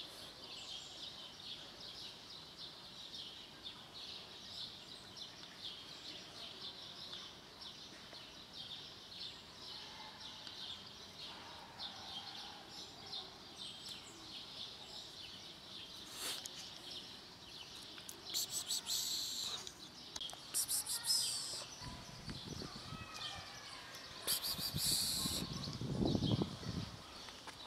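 Birds chirping and calling in the open air, with three short rapid trills in the second half and a few falling whistled notes. Near the end, close rustling and handling noise against the microphone.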